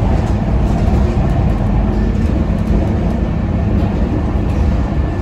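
Scania K230UB city bus driving along, its engine and road noise heard steadily from inside the passenger cabin.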